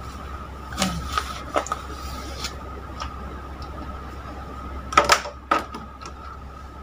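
Scattered clicks and knocks of kitchen things being handled on a counter, with the loudest pair of knocks about five seconds in. A steady faint high-pitched hum and a low hum run underneath.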